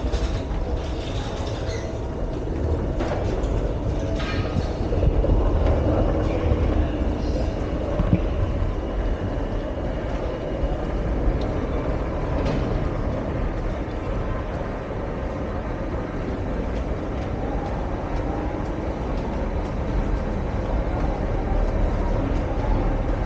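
Steady low rumble of an underground metro station, with a few short knocks and clicks.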